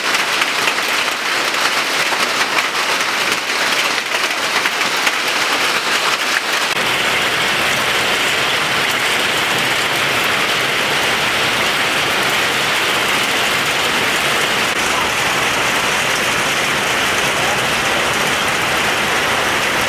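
Hail on the roof, so loud, clattering as a dense, rapid patter. About seven seconds in it gives way to an even, steady rush of heavy rain.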